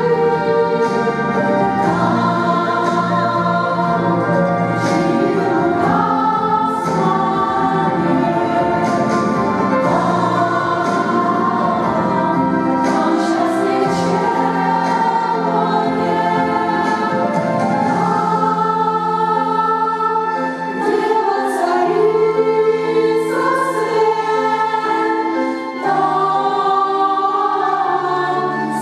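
Church choir singing in harmony, several voice parts sustaining notes together, with two brief breaks between phrases.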